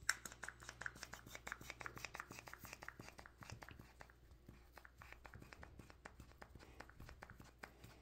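Faint, rapid clicking and crackling of hands working a plastic toothpaste tube, squeezing it to get the paste out. The clicks come thick and fast at first and thin out after about five seconds.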